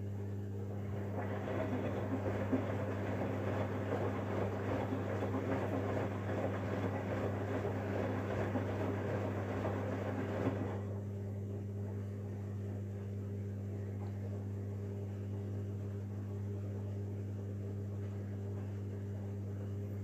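Samsung front-loading washing machine partway through a bedding wash: the drum tumbles the wet, sudsy load with water sloshing, then the tumbling stops about ten seconds in. A steady low hum runs underneath throughout.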